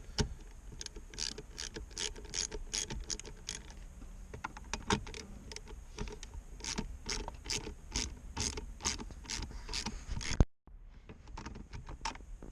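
Ratchet wrench clicking in quick runs of several clicks a second as dashboard bolts are undone, with a sharp knock and a brief break about ten seconds in.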